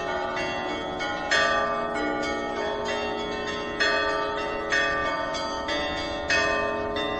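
Russian Orthodox church bells of the Danilov set rung in a festival peal (zvon). Several tuned bells are struck again and again in an overlapping pattern, a fresh stroke every second or so, while the tones of the larger bells ring on underneath.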